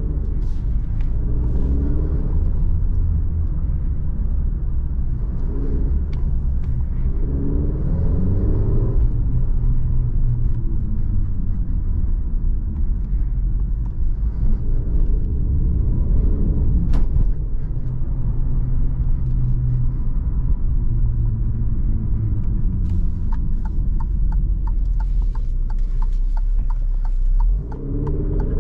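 2022 Alfa Romeo Giulia Veloce's 2.0 turbocharged four-cylinder engine heard from inside the cabin, pulling through town with repeated rises in revs over a steady low rumble of road noise. A rapid, regular ticking comes in near the end.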